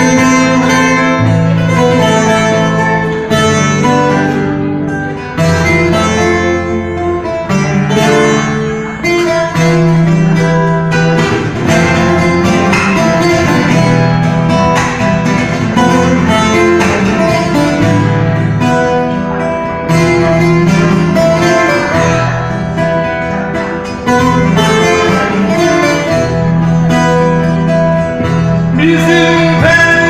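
Bağlama (long-necked Turkish lute) playing a türkü melody, over sustained low bass notes that change every second or two.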